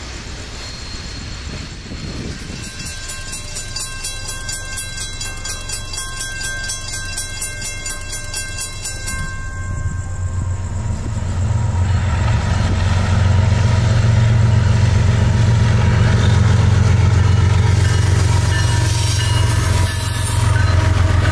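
CSX freight train's diesel locomotives approaching and passing: a deep engine rumble builds from about ten seconds in and then stays loud, with steady tones running over it.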